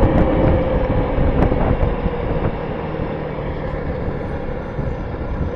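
Honda Ruckus 49cc four-stroke single-cylinder scooter engine running while riding, picked up by a mic inside the rider's helmet with heavy low wind rumble. The engine note is steady and eases off slightly in the second half.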